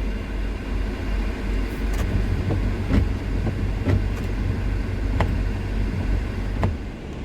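Inside a van cab in heavy rain: a steady low rumble, with scattered sharp taps of rain hitting the roof and windscreen.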